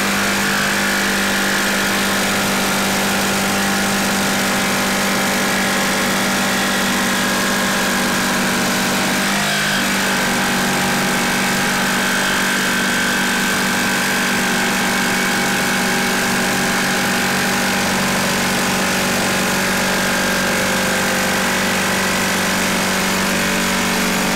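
Ryobi cordless jigsaw running at a steady speed, its blade cutting lengthwise along a wooden board in one continuous cut.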